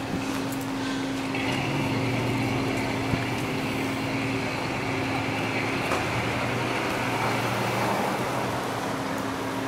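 Street traffic with a steady low hum; a minivan drives slowly past close by near the end, its tyres and engine swelling briefly.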